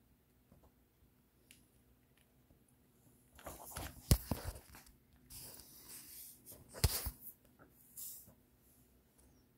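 Handling noise from a phone being picked up and moved about: hands rubbing and rustling against it for several seconds, with two sharp knocks, about four seconds in and again near seven seconds in.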